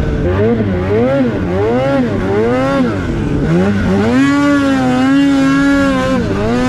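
The 850 two-stroke twin of a Polaris Khaos snowmobile, breathing through a Sled Shed Cooker Thing silencer. The revs rise and fall again and again as the throttle is worked, then climb about four seconds in and hold steady and high, on the pipe.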